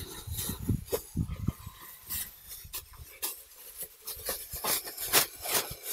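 Plastic garbage bag rustling and crinkling as a cloth jacket is stuffed into it, in irregular crackles.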